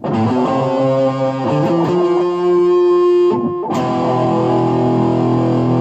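Music played on guitar, with a short break about three and a half seconds in.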